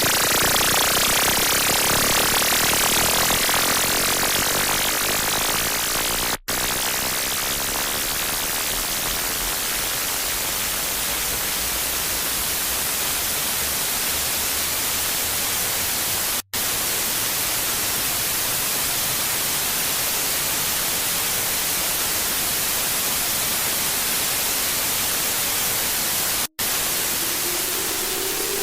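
Loud, harsh static noise, a dense hiss strongest in the high end, cut by three split-second dropouts about ten seconds apart. Near the end a rising tone begins to slide in over the static.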